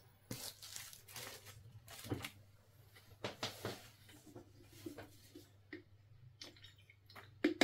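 Irregular rustling and light clicking of small objects being handled, with a quick cluster of louder clicks near the end.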